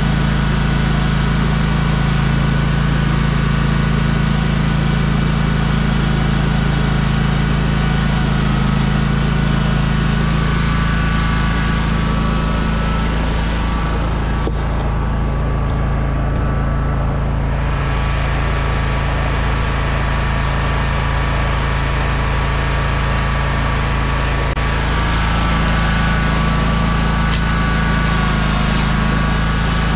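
Engine of a stand-on lawn-care machine running steadily, a low hum with a high whine over it. It is slightly quieter for a few seconds around the middle.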